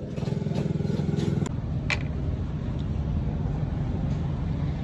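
A steady, low engine drone, with a short clink of a spoon against the glass jar about two seconds in.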